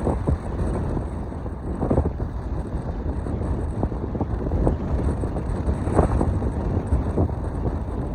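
Strong wind buffeting the microphone, a steady low rumble with irregular gusts.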